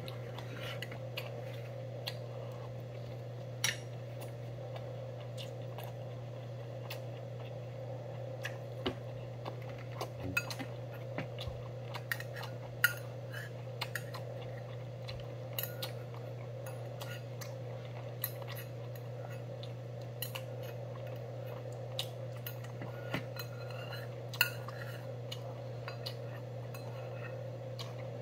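Metal chopsticks and spoon clinking and scraping against a small stainless steel rice bowl as the last of the rice is scooped out: scattered, irregular clinks over a steady low hum.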